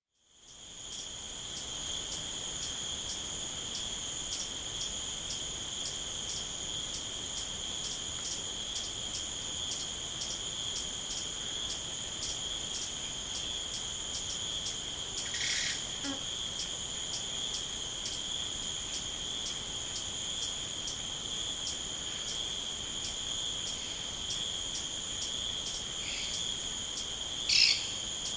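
Night insects, crickets: a continuous high-pitched trill with a regular pulsing chirp over it, fading in over the first second. A brief call sounds about halfway through and a louder one near the end.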